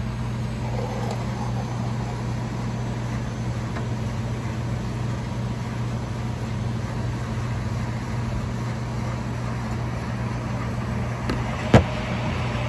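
Coffee vending machine running as it makes a hot chocolate: a steady low hum, with one sharp click near the end.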